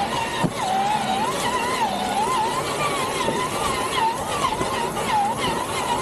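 Traxxas TRX4 RC truck's electric motor and geartrain whining, the pitch rising and falling with each change of throttle as it crawls.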